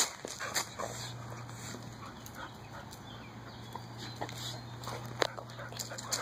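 A dog making faint sounds while being petted, with scattered short clicks and a steady low hum behind.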